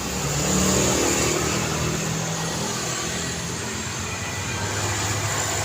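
Road traffic noise from passing cars. A vehicle passes close about half a second in, its engine note loudest then and dropping in pitch as it goes by.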